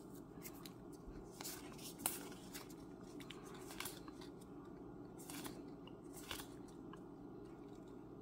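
Trading cards being slid and flipped in the hands, quiet papery swishes at irregular intervals over a steady low hum.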